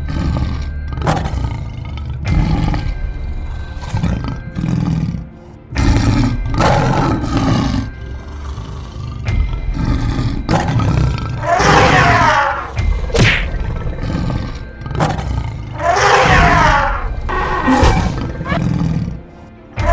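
Stock animal roar sound effects laid over background music. Several long roaring cries fall in pitch, the loudest in the second half.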